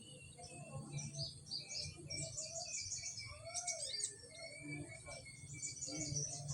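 Several birds chirping in quick, short calls throughout, over a steady high-pitched insect drone and a low hum.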